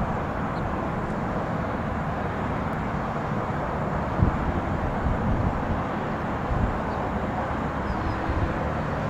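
Steady rumble of jet aircraft noise, with uneven gusty low-end rumble over it.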